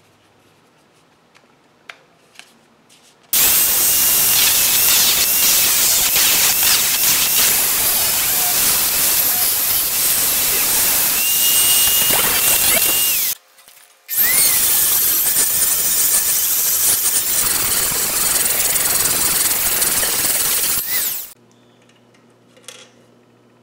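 Angle grinder grinding a steel knife blank clamped in a vise, taking material out of the middle of the blade. It is a loud, steady grinding hiss with a high whine over it, starting about three seconds in. It breaks off briefly around the middle and stops a couple of seconds before the end.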